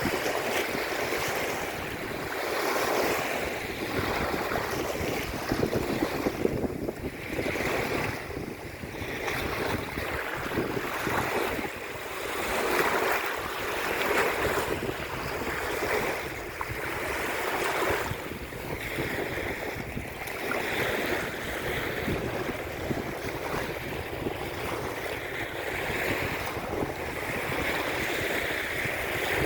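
Sea waves washing in and breaking on the shore, a continuous rush that swells and ebbs every second or two, with wind buffeting the microphone.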